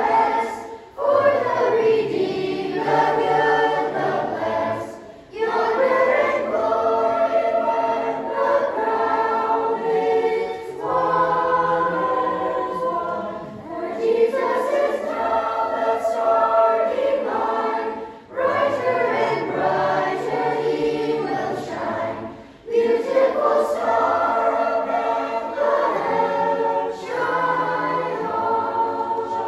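Mixed choir of children and teenagers singing a song in harmony, in long phrases broken by brief pauses for breath in which the sound nearly drops away.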